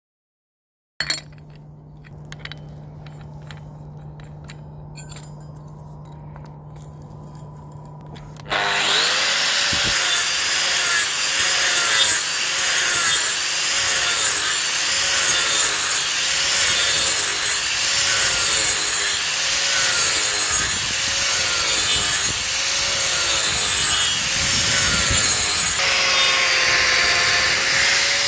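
Angle grinder with a 115 mm toothed steel rasp disc (ROTAREX Black Mamba R2/115+) grinding and milling wood. It comes in suddenly about eight seconds in, loud and rasping, the motor's pitch dipping and recovering in a steady rhythm, roughly once a second, as the disc is swept across the wood under load. Before that there is only a quiet low hum with a few clicks.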